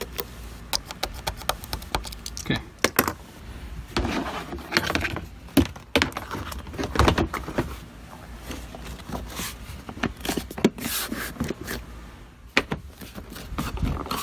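Hands handling plastic car interior trim and its clips: irregular clicks, knocks and rustling, with a few sharper snaps standing out.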